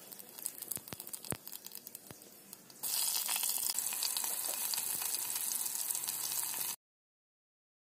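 Potato chunks frying in hot oil with cumin seeds in a metal pot: a steady sizzle that starts suddenly about three seconds in and cuts off abruptly near the end. Before it, a few soft clicks over a faint hiss.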